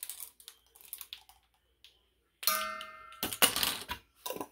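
Kitchen utensils being handled at a stainless steel mixer bowl: a single metallic clink about halfway through that rings briefly, then about a second of clattering and rustling, with a shorter knock near the end.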